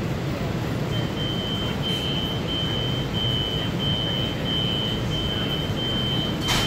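Inside a Metro-North M8 electric railcar, a low steady rumble, with a high-pitched electronic beep repeating about one and a half times a second starting about a second in. A single sharp click sounds near the end.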